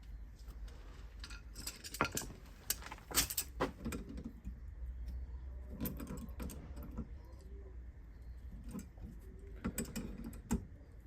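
Loose metal bolts and small hardware clinking and rattling as they are handled, in irregular clusters of sharp clicks over a low steady hum.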